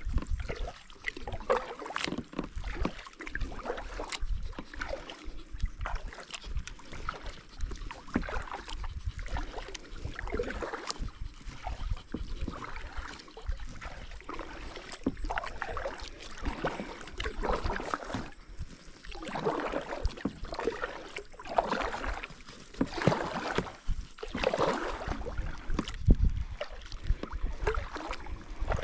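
Kayak paddle strokes dipping and splashing in lake water in an uneven rhythm, about one stroke every second or two, over a low rumble.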